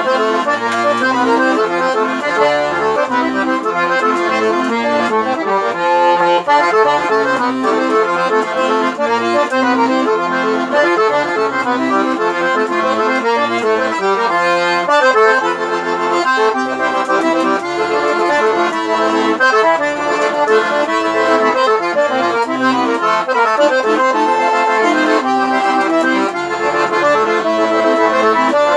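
Solo piano accordion (sanfona) playing a lively instrumental tune, a fast run of melody notes over a steady bass-button accompaniment.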